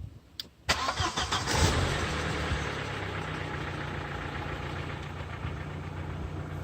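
Audi A4 B5's 1.8-litre turbocharged four-cylinder (AEB) engine starting: it fires under a second in, flares briefly, then settles into a steady idle.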